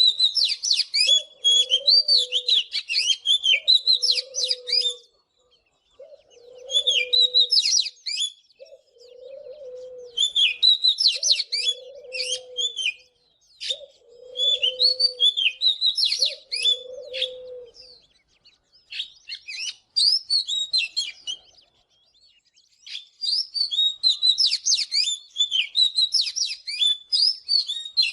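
Oriental magpie-robin singing bursts of rapid, varied whistled phrases with short pauses between them. Under the song a dove repeats low coos, which stop about two-thirds of the way through.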